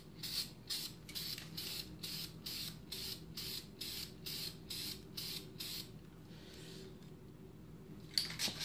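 Aerosol can of silver spray paint hissing in quick short spurts, about three a second, for around six seconds, then stopping. A sharp knock near the end.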